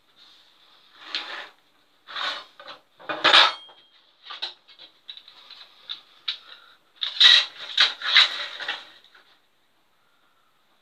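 A metal straightedge and a plastic drafting ruler handled on a plywood drawing board: knocked, slid and set down in a run of clatters and scrapes. The loudest comes about three seconds in, and a dense cluster follows from about seven to nine seconds in.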